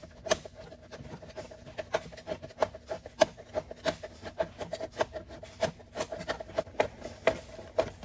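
Irregular clicks, scrapes and rubbing of gloved hands unscrewing a spin-on oil filter by hand, with a cut-open plastic oil bottle and a rag underneath as a drip catcher.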